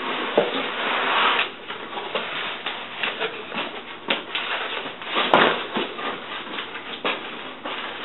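Cardboard shipping box being opened and unpacked by hand: flaps scraping and rustling and packing rubbing against the box, with one sharp click about five seconds in.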